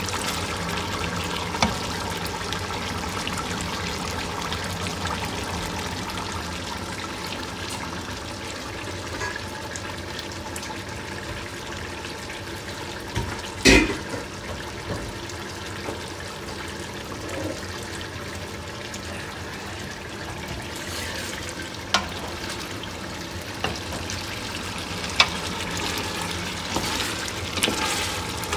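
Veal sizzling steadily as it browns in a pot over high heat. A few sharp knocks cut through, the loudest about fourteen seconds in.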